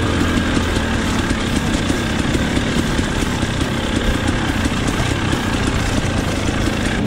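KTM XC-W enduro dirt bike's engine running steadily as the bike is ridden along the trail.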